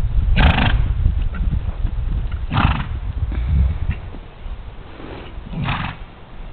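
Horse cantering on a sand arena, its hoofbeats landing as low, muffled thuds. Three short, harsh noisy bursts break in about two and a half seconds apart.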